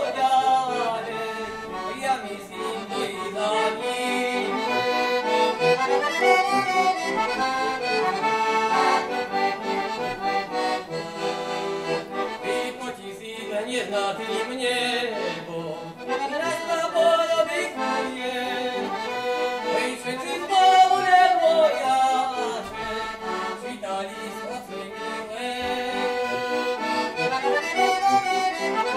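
Heligonka, a Slovak diatonic button accordion, playing a folk tune solo.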